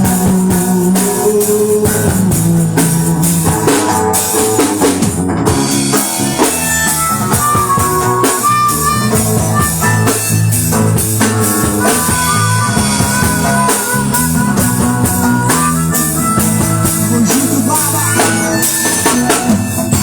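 A live band plays an instrumental passage in a reggae/MPB groove: drum kit with rimshots, electric bass and acoustic guitar, with a lead melody line over them.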